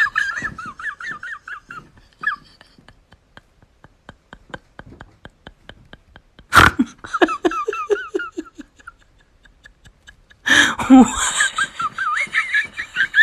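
A person laughing hard in high-pitched fits: one bout at the start, a loud one about six and a half seconds in, and another from about ten and a half seconds in, with quieter breathy laughter pulsing in between.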